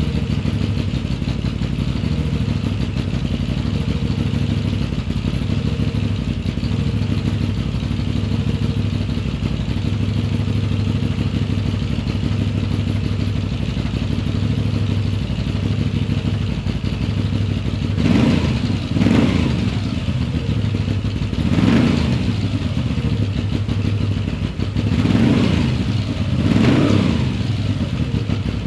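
2021 Moto Guzzi V7's air-cooled transverse V-twin idling through an Agostini short exhaust with its dB killers fitted. In the second half the throttle is blipped about five times, each rev rising quickly and dropping back to idle.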